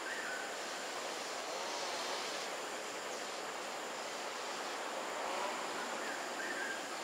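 Steady outdoor background noise, an even hiss, with a few faint high chirps near the start and again near the end.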